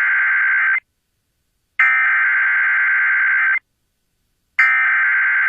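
Emergency Alert System SAME header: repeated bursts of buzzing digital data tones, each just under two seconds long, with a second of silence between them. The end of one burst, a full burst, and the start of a third are heard. This is the coded header that opens a new weather alert, here a severe thunderstorm warning.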